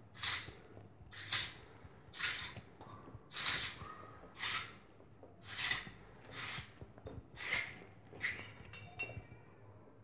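A person breathing close to the microphone, about one breath a second, while working a tap into its wall fitting by hand. A light metallic clink near the end.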